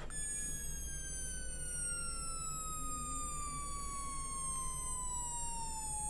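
NE555 timer Morse practice oscillator sounding a continuous electronic tone through a small 8-ohm speaker, its pitch gliding steadily down as the frequency potentiometer is turned, and levelling off near the end at its minimum of about 848 hertz.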